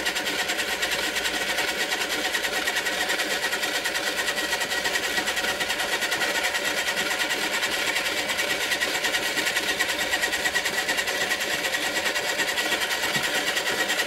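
Small electric pottery wheel running steadily at speed, spinning a vinyl record. It makes a constant motor whir with a fast, even pulse and a thin high whine.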